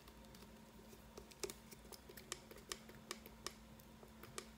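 Light, sharp plastic clicks and ticks from a plastic shampoo bottle being gripped and handled, irregular and several a second, starting about a second in, over a faint steady hum.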